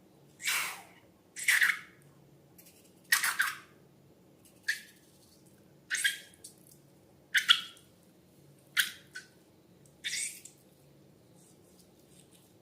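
Wet squelching of slime being squeezed or pressed, in about nine short squishes roughly every second and a half.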